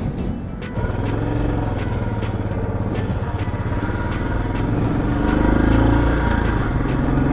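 Royal Enfield Bullet single-cylinder motorcycle engine running on the move, its note rising a little past the middle. Background music plays over it.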